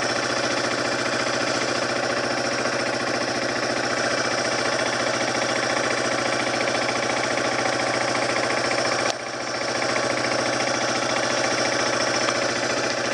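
Yamaha TW200's single-cylinder four-stroke engine running steadily at low revs with a rapid, even pulse, the bike standing still; the sound briefly drops with a click about nine seconds in.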